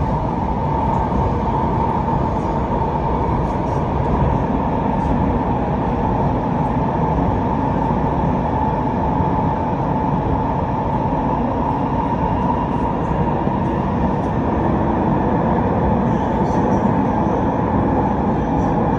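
Inside an SMRT MOVIA R151 metro carriage running between stations: steady rumble of the train on the rails, with a steady whine at one pitch setting in about half a second in.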